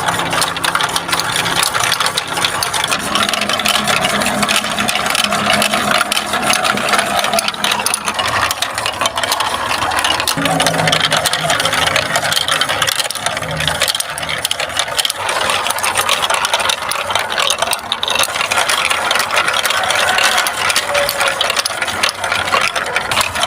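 Marbles rolling and clattering along a Lego Duplo plastic block track, a dense continuous rattle of clicks with a rolling hum that rises and fades now and then.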